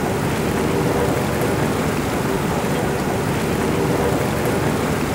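Water churning and frothing in a makeshift fire-heated spa tub: a steady rushing, bubbling noise, with a faint hum underneath.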